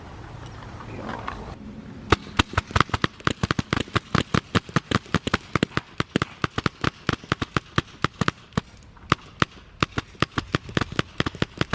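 Paintball guns firing in a rapid string of sharp pops, several shots a second, starting about two seconds in.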